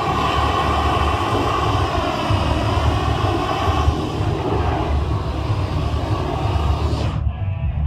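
Steady roar of a gas torch's flame jet, with a strong low rumble; the higher part of the sound drops away suddenly about seven seconds in.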